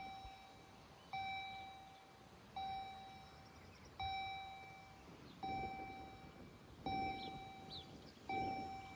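Railway level-crossing warning bell ringing in slow, even strokes, about one every second and a half, each dinging sharply and fading, signalling that a train is approaching.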